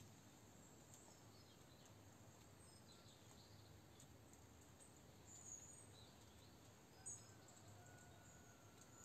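Near silence: faint room tone with a few faint, short high chirps scattered through it.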